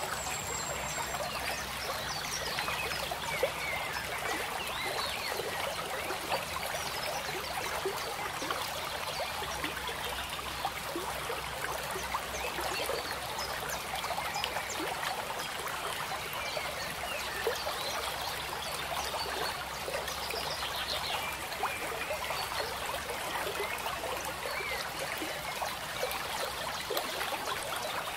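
Running water trickling and burbling steadily, like a small stream, with many small splashy ticks.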